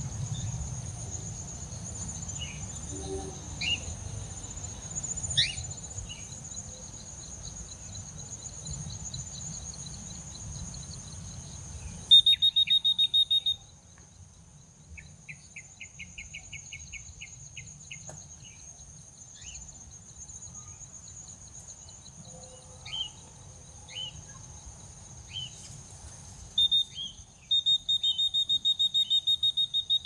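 Outdoor field ambience: a steady high insect drone, short chirping bird calls scattered throughout, and loud bursts of fast pulsed trilling about twelve seconds in and again near the end. Wind rumbles on the microphone for the first twelve seconds, then drops away.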